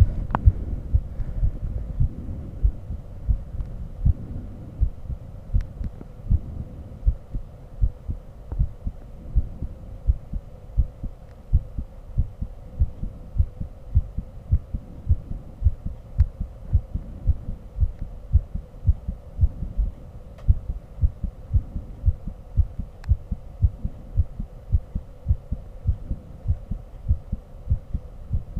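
Human heartbeat picked up by a microphone held to the chest: a regular run of low thumps at about one and a half beats a second, over a faint hum. A low rumble fades out in the first second.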